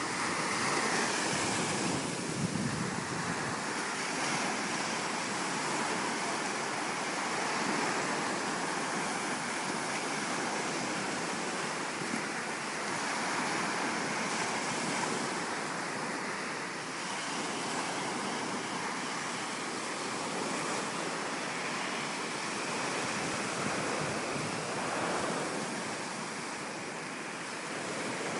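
Surf washing onto a beach, a steady rush of noise that swells and eases gently, with wind buffeting the microphone.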